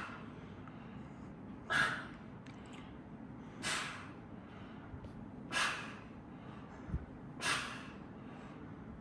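A person breathing out hard through the nose or mouth in an even rhythm, about once every two seconds, with each rep of a light dumbbell rear-delt raise. A short low thump comes near the end.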